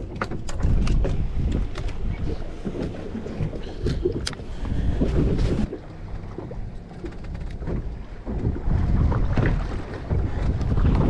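Wind buffeting the microphone on an open boat, over water sloshing against the hull, with a few light clicks and knocks in the first seconds.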